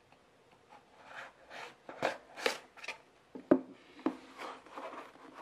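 Product packaging being opened by hand: an uneven run of rustles, scrapes and sharp taps, the loudest tap about three and a half seconds in.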